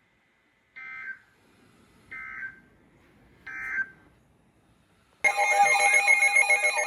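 Emergency Alert System SAME header: three short bursts of warbling data tones, about a second apart. About five seconds in, a loud alert tone starts, a layered warbling alarm that signals the warning to come.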